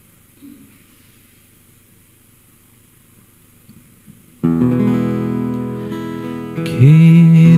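Near silence for about four seconds, then acoustic guitar music starts abruptly. Near the end a held melody note joins, sliding up into pitch, and becomes the loudest part.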